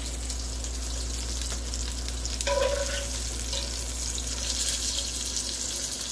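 Sausage and tasso frying in oil in a cast iron pot, a steady sizzle, with a metal spoon scraping and scooping pieces out. A short pitched sound comes about two and a half seconds in.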